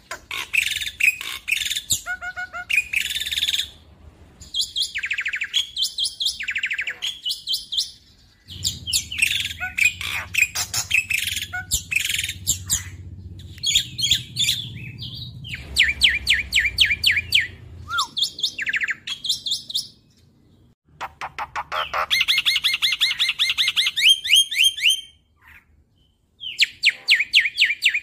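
A black-winged starling (jalak putih) singing in long runs of rapid, repeated sharp chattering notes, the fast 'nembak' delivery, broken by two short pauses late on.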